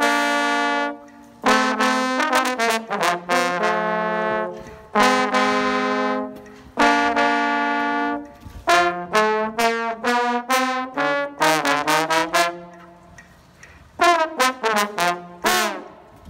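A solo brass instrument playing unaccompanied, mixing long held notes with quick runs of short notes.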